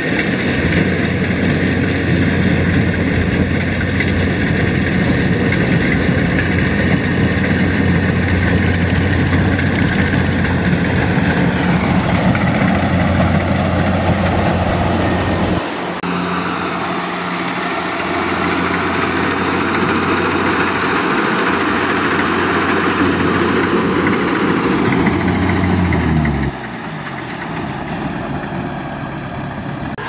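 Kubota DC70 combine harvester's diesel engine and threshing machinery running steadily with a constant hum. The sound shifts abruptly about halfway through, and near the end the engine note drops and falls away, leaving a quieter hum.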